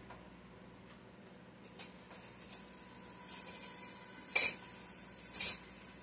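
Two sharp clatters of kitchenware about a second apart, late on, the first the louder, over the faint steady sizzle of potatoes frying in a covered skillet.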